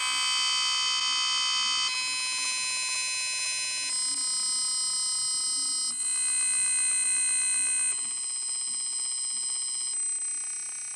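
Cartoon slap sound effects repeated so fast that they merge into a loud, harsh buzzing tone, which jumps to a new pitch about every two seconds.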